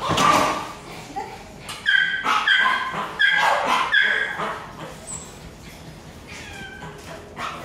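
Puppy yipping: four short, high yips about a second apart, then a falling whimper near the end.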